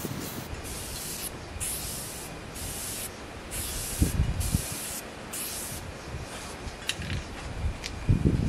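Aerosol spray-paint can hissing in about six short bursts over the first six seconds as it coats a milling-machine knee casting with fast-drying paint. Low thumps come about four seconds in and near the end.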